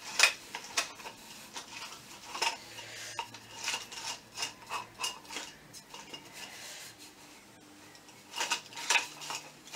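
Light metal coat-rack tube posts and fittings being handled and fitted together: irregular clinks, taps and scraping, in small clusters with quieter stretches between.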